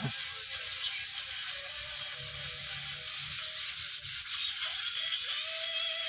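Small paintbrush scrubbing finish onto a wooden door panel: a steady scratchy rubbing in quick, even strokes.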